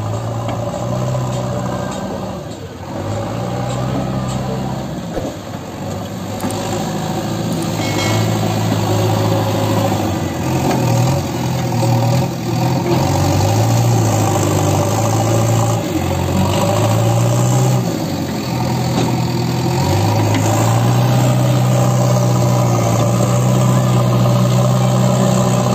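JCB 3DX backhoe loader's diesel engine working under load, its note rising and dipping again and again as the front bucket pushes and scoops soil.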